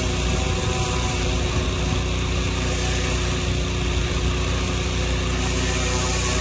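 Pressure washer running steadily while a turbo-tip nozzle on an extension wand sprays water onto aluminum siding to strip chipped paint: a constant spray hiss over a steady motor hum, unchanging throughout.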